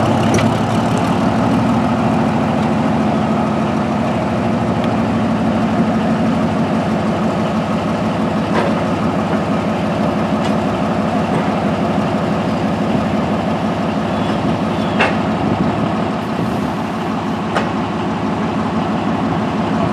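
Northwest 80D crawler crane's engine idling steadily, with a few sharp clicks over it.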